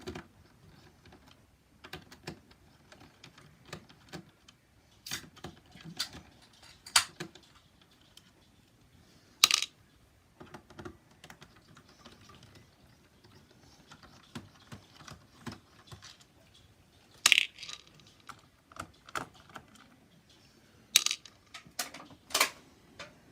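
Small metal laptop screws being backed out with a precision screwdriver and set down on a hard surface: scattered light clicks and ticks at an irregular pace, with a few louder sharp clinks.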